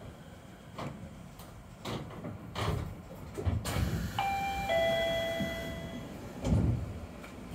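A Chiba Urban Monorail Type 0 car's two-note falling electronic chime, of the kind sounded as the doors close. It comes about four seconds in and rings for under two seconds, after a run of short clicks and knocks, with a low thump about a second after it.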